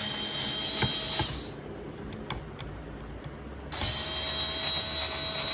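Cordless drill-driver running in two spells of about two seconds, backing out the screws that hold a laptop's hard disk, with a few light clicks in the pause between.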